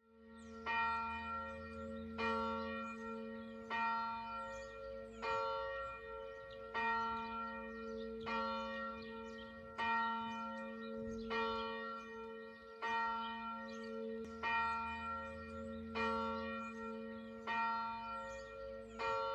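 A large church bell tolling steadily, one stroke about every second and a half, each stroke ringing on into the next with a lingering hum.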